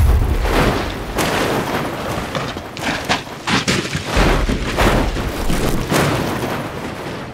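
A car with a steel roll cage rolling over down a rocky slope: a series of heavy crashes and thuds as it slams into rock and dirt, the loudest crash right at the start, with deep booms underneath.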